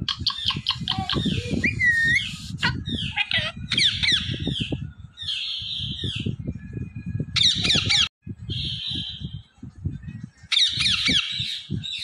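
Parrots squawking and chattering in shrill, rapidly repeated bursts, with short pauses, over an uneven low rumble.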